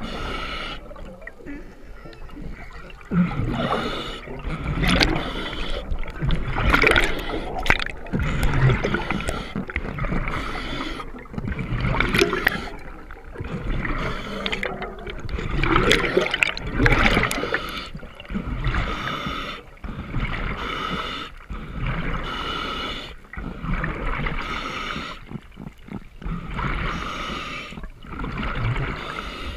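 Water gurgling and bubbling around a spearfisher's camera, in uneven surges every second or two.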